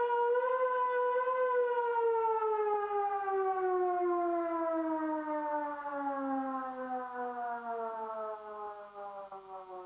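Civil defense warning siren winding down: its wail holds briefly, then the pitch falls slowly and steadily as it fades.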